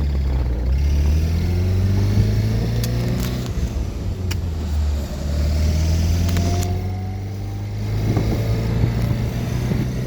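2008 Pontiac Solstice GXP's turbocharged 2.0-litre four-cylinder accelerating, revs rising, dropping at a gear change about five seconds in, then rising again. It carries a rattling noise on acceleration, present only while the engine is cold, that the owner cannot identify.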